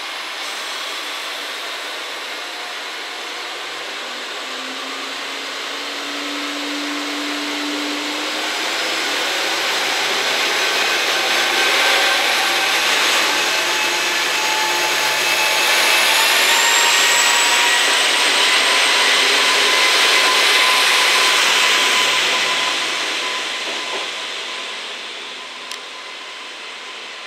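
Three-car KiHa 40-series diesel railcar train (a KiHa 40 and two KiHa 47s) pulling out of a station: the diesel engines run under power, growing louder as the cars go by. A whine rises in pitch about two-thirds of the way in, and the sound fades as the train leaves.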